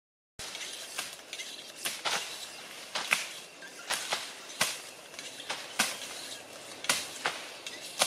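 Machetes swishing and chopping through tall grass stalks: sharp strokes about once a second, some in quick pairs.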